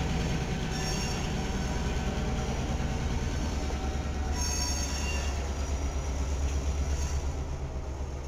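Strasburg Rail Road diesel switcher locomotive shoving freight cars past at low speed, its engine running with a steady low drone. The car wheels give a few brief high-pitched squeals.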